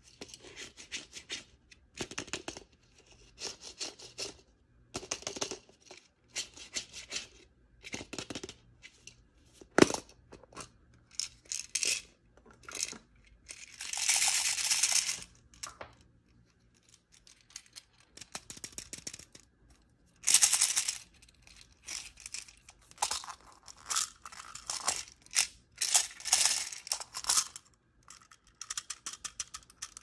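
Hands handling and opening a plastic toy surprise ball and packaging: intermittent rubbing, rustling and clicks of plastic, with one sharp snap about ten seconds in and a quick run of small ticks near the end.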